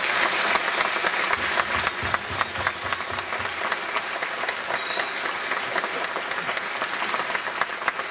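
Audience applauding: dense, steady clapping that eases off slightly toward the end.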